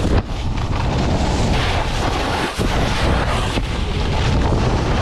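Wind rushing over the microphone of a snowboarder's camera while riding fast downhill, with the snowboard scraping and sliding over the snow, a steady loud rush.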